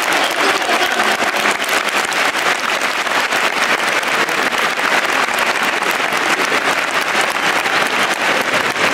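Large stadium crowd applauding steadily, a dense even clatter of many hands clapping.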